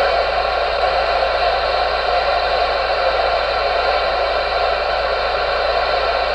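Steady hiss of static from a Galaxy DX 94HP CB radio's receiver on the AM band.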